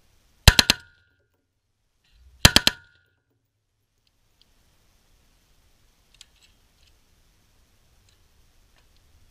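An M16-type rifle firing on full auto: two short bursts of about four rounds each, roughly two seconds apart. A few faint clicks follow later.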